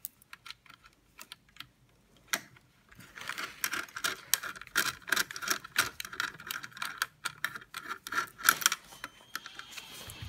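Small metallic clicks and rattles of a hand nut driver loosening a screw on a control board's mount inside a metal machine cabinet. A few scattered clicks at first, then a quick, irregular run of clicks from about three seconds in.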